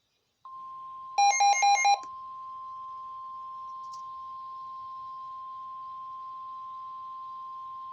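NOAA Weather Radio's 1050 Hz warning alarm tone, a single steady tone that starts about half a second in and holds, signalling that a new warning broadcast follows. Just after it starts, four loud, short electronic beeps sound quickly over it.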